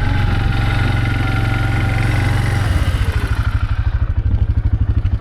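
Small vehicle engine running steadily. About two and a half seconds in it slows, its pitch dropping, and settles into an even, low pulsing near idle.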